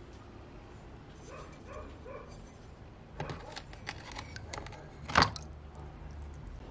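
Iron axe head clicking and knocking against a plastic tub as it is lowered into a bath of liquid, with one sharp knock about five seconds in as it is set down. Earlier come three short, high whining squeaks.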